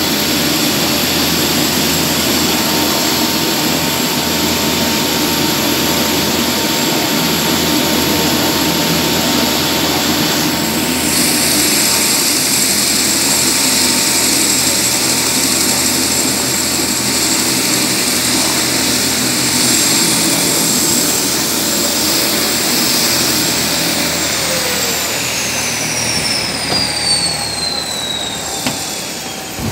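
Aircraft turbine engine running with a steady loud rush and a high whine, then spooling down near the end: its whine tones fall steadily in pitch.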